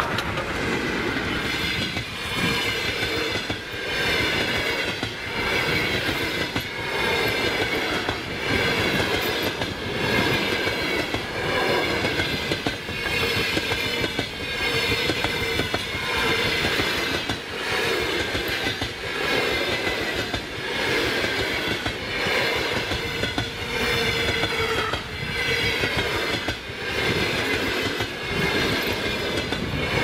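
Passenger coaches of a locomotive-hauled train rolling past close by at speed. The wheels clack over the rail joints in a steady repeating rhythm, with a dip in loudness about every two seconds as each coach goes by, over a wavering high whine. The noise falls away near the end as the last coach passes.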